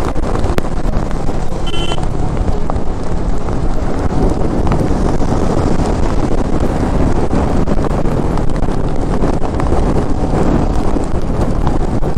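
Wind buffeting the microphone on a Royal Enfield motorcycle under way, with engine and road noise steady underneath. A brief high tone sounds about two seconds in.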